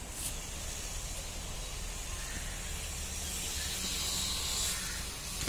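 Steady hissing outdoor background noise with a low rumble underneath, growing a little brighter a few seconds in: garden ambience with no distinct sound event.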